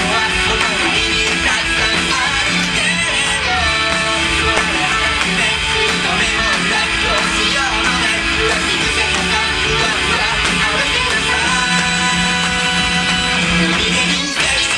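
Loud music with guitar to the fore, a mostly instrumental stretch with little or no singing.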